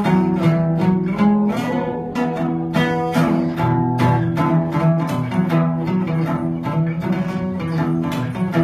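Acoustic guitar played solo with picked melody notes over a repeating bass line, several notes a second, playing a Cambodian chapei melody on the guitar in place of the chapei lute.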